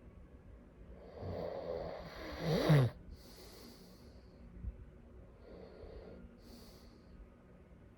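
A sleeping person snoring. One long snore builds from about a second in to a loud, rattling peak and cuts off near the three-second mark. A breathy exhale and quieter breathing follow.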